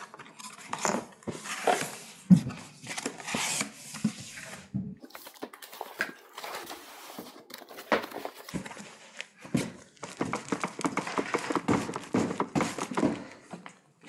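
Cardboard box being opened and unpacked by hand: irregular scraping, rustling and light thumps of cardboard and packing sheets, with a dense run of crackling near the end.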